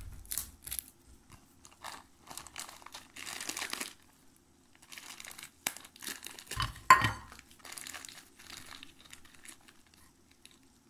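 Plastic zip-lock bag crinkling and rustling in short bursts as it is handled and lifted out of a bowl, with one louder knock about seven seconds in.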